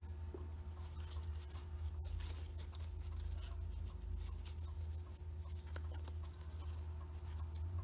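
Faint scratchy rustling and small clicks of folded paper as a hand-held origami kusudama ball is handled and turned, over a steady low hum.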